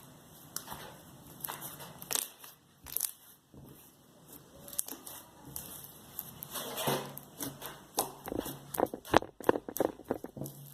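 Hands kneading and stretching a large mass of slime, making irregular wet clicks and pops that come thicker in the second half.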